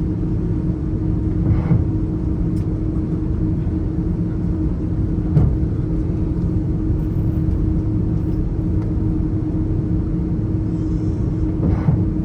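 Inside the cabin of an Airbus A330 airliner: a steady rumble of engines and airflow with a constant hum. Three brief knocks or bumps come through, the loudest about halfway through and another near the end.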